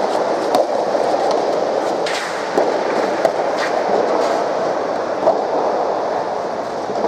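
Soft tennis rally: rackets strike the soft rubber ball several times, sharp pops spaced irregularly, over a steady background din.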